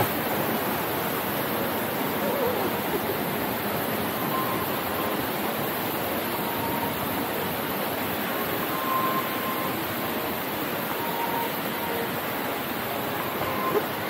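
Hinanger waterfall: a steady rush of falling water.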